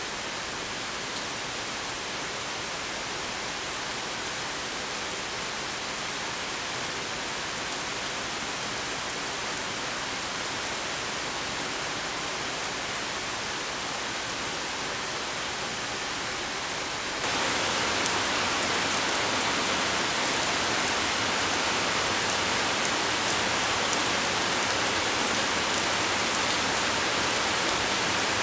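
Steady rainfall, an even hiss; about two-thirds of the way through it jumps suddenly to a louder, heavier downpour.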